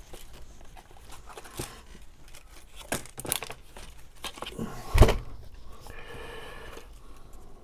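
Paper craft pieces being handled and shuffled on a work surface: light rustling and small taps, with one sharper knock about five seconds in.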